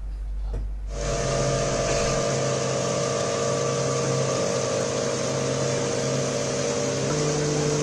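Outboard motor of a river boat running at a steady pitch, with rushing water and wind noise; it starts about a second in, and the engine note steps slightly higher near the end.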